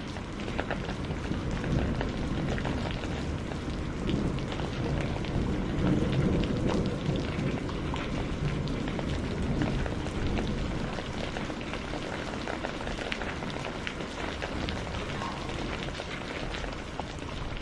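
Steady rain falling, a dense hiss of many separate drop hits over a low rumble, swelling slightly a few seconds in.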